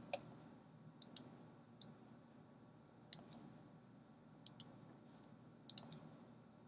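Faint, scattered clicks of a computer mouse and keyboard, about ten in all, some in quick pairs, against near silence.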